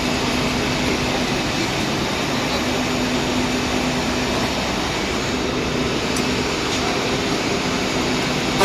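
SPT-280 milling-sawing machine for small-diameter logs running steadily, an even mechanical noise with a faint low hum.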